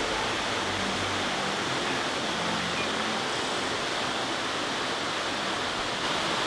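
Steady rush of a waterfall pouring into a pool, with the tail of background music fading out in the first second or two.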